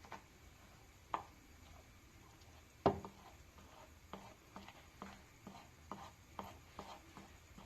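Kitchen utensils knocking and tapping during cake preparation: two sharp knocks, then a run of lighter taps at about two a second.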